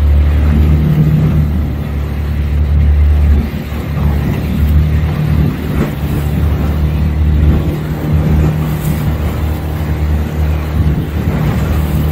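A motorboat's engine runs under way with a steady low hum. Its note drops and picks up again several times from about three and a half seconds in, over a constant rush of noise.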